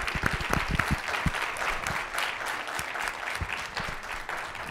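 Audience applauding, with a few louder, closer claps in the first second.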